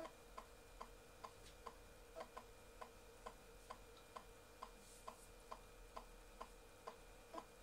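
Floppy drive reading the installer disk: faint, even clicks about twice a second as the drive's head steps from track to track.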